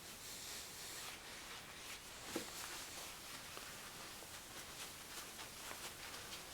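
Faint scratchy rubbing of a cloth working wax into a plastic headlight lens, with one light knock about two seconds in.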